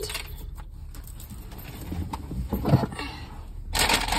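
A bag being handled, rustling, with a few soft knocks; the rustling grows much louder near the end.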